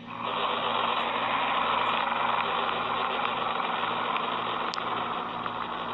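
Played-back audio of an emergency alert (EAS) video for Burundi: a harsh, steady rush of noise with no clear tone, starting abruptly.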